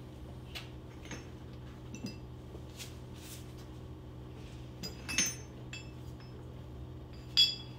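Metal camshaft bearing caps from a Honda B-series VTEC head clinking and tapping as they are handled: a few scattered light clinks, the loudest near the end with a short metallic ring, over a steady low hum.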